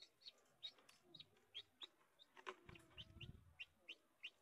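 Newly hatched chicken chick peeping faintly: a string of short, high, falling peeps, about three a second. A low bump sounds a little past halfway.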